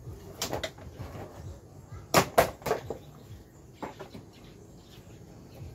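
Plastic knocks and clicks as a Yamaha Mio Gravis scooter's floorboard panel is worked loose and lifted off, with two sharp, loud knocks about two seconds in.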